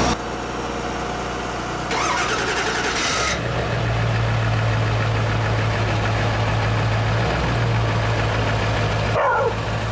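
Truck engine running, with a short clattering burst about two seconds in, after which a stronger, steady engine tone takes over, as of an engine starting and settling into an idle.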